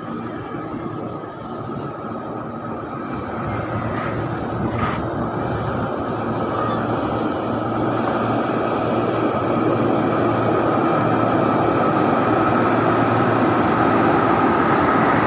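Diesel engine of a heavy truck loaded with another truck, running steadily and growing louder throughout as it approaches on the hill road.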